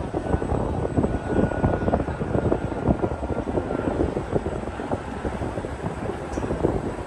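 Wind buffeting the microphone aboard a moving river cruise boat, in irregular gusts over a steady low rumble from the boat.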